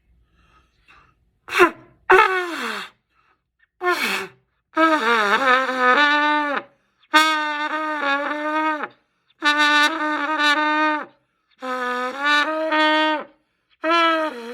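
A beginner blowing a trumpet for the first time: a few short, unsteady blasts that slide down in pitch, then a run of held notes of a second or two each, separated by breaths, with a wavering pitch that sags as each note ends.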